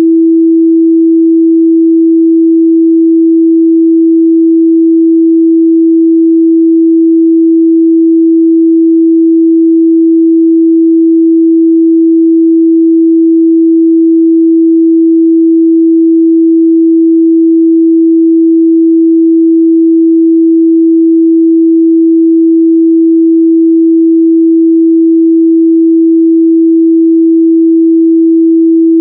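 Steady, loud pure sine-wave test tone at 328 Hz, one unchanging pitch with no other sound.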